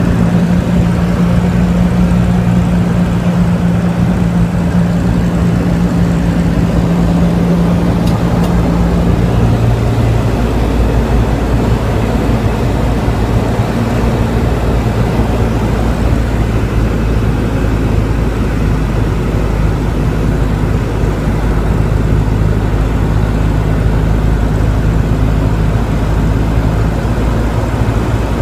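Piston engine of a light high-wing aircraft droning steadily, heard from inside the cabin. About nine seconds in its pitch drops to a lower steady drone as power is reduced on the approach to landing.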